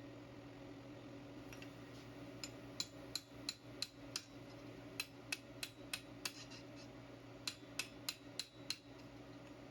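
Hammer tapping lightly on thin-walled hollow steel tube, in short runs of ringing taps about three a second, starting a couple of seconds in. A steady low hum runs underneath.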